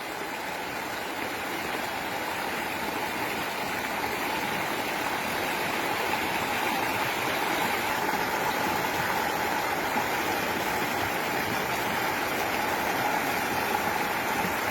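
Steady rush of fast-flowing floodwater, growing a little louder over the first few seconds.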